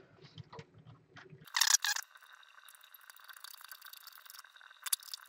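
Small handling noises as a plastic 3D-printed case and its connector are fitted together by hand: faint scattered clicks, a short scraping rustle about two seconds in, and another brief one near the end.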